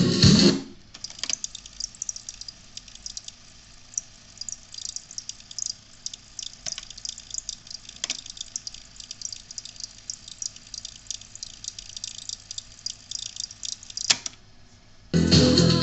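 Crackling and irregular clicks and pops from the car radio's speaker while its music drops out, with a few louder single clicks. Music plays briefly at the start and comes back just before the end.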